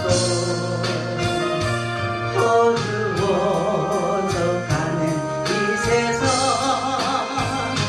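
A woman singing a Korean gospel song through a handheld microphone, with a wide vibrato on her held notes, over instrumental accompaniment with a steady beat.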